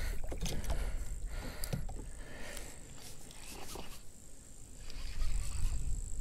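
Wind rumbling on the microphone, with scattered clicks and knocks from fishing gear being handled on a kayak.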